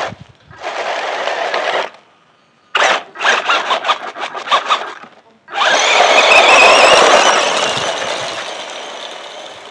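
Electric RC monster truck towing a loaded trailer over gravel: motor whine with tyres spinning and scrabbling on loose grit, first in short stop-start throttle bursts, then a long full-throttle run that fades as the truck drives away.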